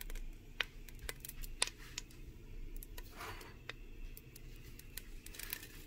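Faint, scattered ticks and small pops from a little olive oil heating in a stainless steel pot over medium heat, with a short soft rustle about three seconds in.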